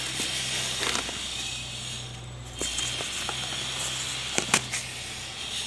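Cardboard box flaps rustling and scraping as a delivery box is opened by hand, with a few sharp clicks, two of them close together near the end. A steady low hum runs underneath.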